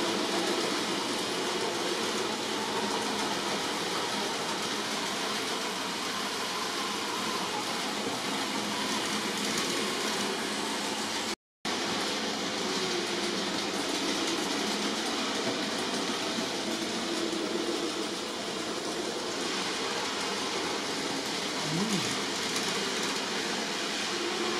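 Steady hiss, with a model railway locomotive running along the track as a short goods train passes near the end. The sound cuts out briefly about halfway through.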